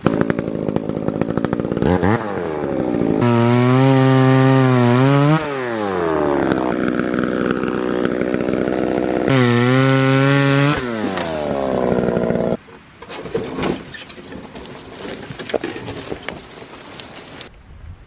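Chainsaw revving up to full throttle and cutting through a log, its note rising and falling twice, then shutting off about twelve and a half seconds in. Light knocks and rustling follow.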